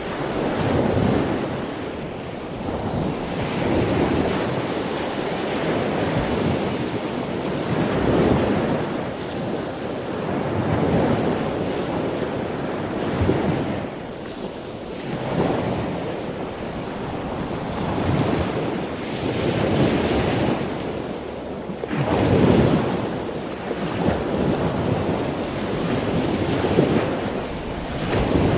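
Ocean waves breaking and washing on a shore, a steady rushing surf that swells and falls back every few seconds.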